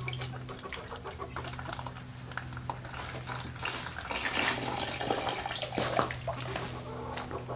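Water from a garden hose running into a plastic five-gallon bucket of whole grain, a steady pouring splash as the bucket fills. A steady low hum runs underneath.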